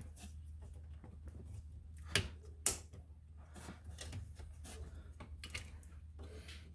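Small plastic clicks and knocks as the ignition switch module is pushed and worked loose from its tabs in the steering column, with two sharper clicks a little past two seconds in, over a steady low hum.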